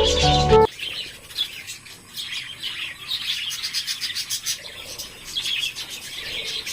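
Background music cuts off abruptly less than a second in, then a flock of budgerigars keeps up a busy, high-pitched chirping and chattering.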